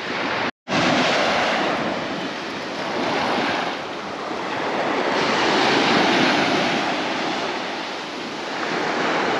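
Small waves breaking and washing up a sandy beach, the surf noise swelling and ebbing every few seconds. It cuts to silence for a moment about half a second in.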